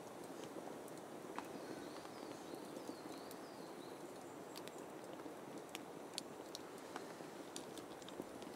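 Small campfire crackling, with scattered sharp pops over a steady soft rush. A bird gives a short run of high chirps about two seconds in.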